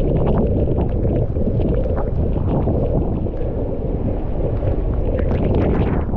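Strong hurricane wind buffeting an action camera's microphone during a bike ride, a loud, steady, rumbling wind roar.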